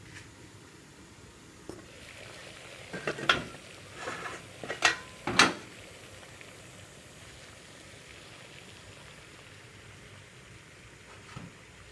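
Aluminium pot lid lifted off and set down, clanking three or four times against the metal, one strike briefly ringing, over a low steady hiss from the pot of water at a rolling boil. A small knock near the end.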